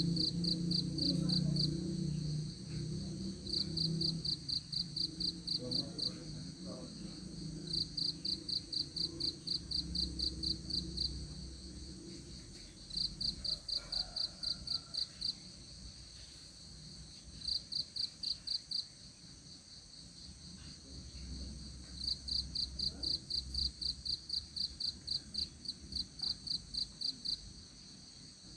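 Insect chirping in runs of short high pulses, about five a second, each run lasting two to three seconds with pauses between. A low drone fades out over the first few seconds.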